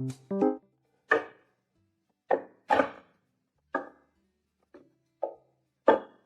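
An irregular series of about seven short, sharp knocks, each dying away quickly, with a few notes of piano music fading out at the start.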